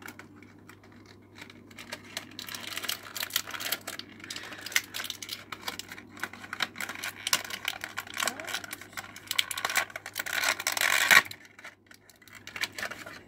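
Crinkly toy packaging being torn open and handled: a long run of crackles and rustles that grows densest and loudest about ten seconds in, then stops abruptly about a second later.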